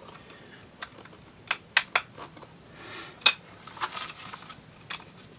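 Irregular sharp clicks and taps from a hard plastic drone being handled, about eight in all, with a short soft rustle just before the loudest click around three seconds in.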